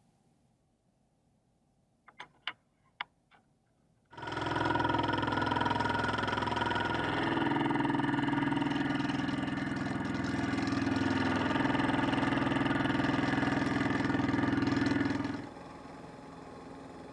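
A few sharp clicks, then a manual machine tool's motor starts about four seconds in and runs with a loud, steady hum and whine. Near the end it drops to a quieter steady hum.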